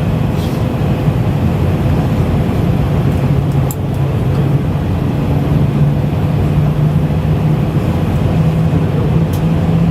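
Airliner cabin noise from a window seat: the jet engines running with a loud, steady low rumble and a hum that rises slowly in pitch, with a few faint clicks.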